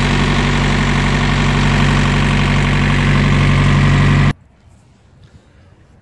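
Diesel engine of a Thermo King trailer refrigeration unit running steadily just after starting, smooth and even. It stops abruptly about four seconds in, leaving faint quiet.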